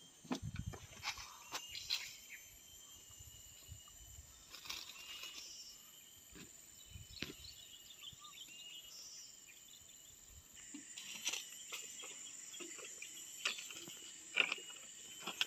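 Insects droning steadily in high thin tones, with scattered sharp clicks and knocks, the clearest about fourteen seconds in.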